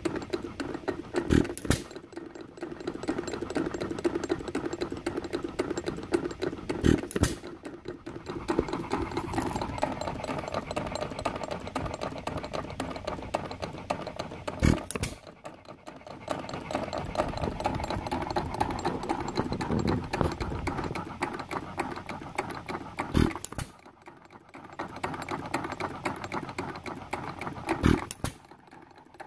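Ingeco 1 1/2 hp hit-and-miss engine running unloaded: it fires with a sharp bang about every six to eight seconds and coasts on its flywheels in between with a steady mechanical clatter. The widely spaced firing is the governor skipping ignition until the speed drops, as a hit-and-miss engine does at idle.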